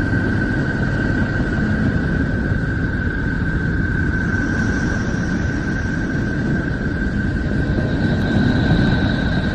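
The 'sound of Neptune': spacecraft data converted into audio, a steady low rumbling noise with one steady high-pitched tone held throughout; fainter, higher tones come in around the middle and again near the end.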